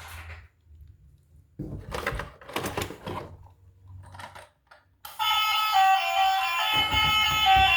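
Plastic toys being handled, with scattered clicks and rattles. About five seconds in, a loud tune of steady stepped tones starts, with a few low thumps under it near the end.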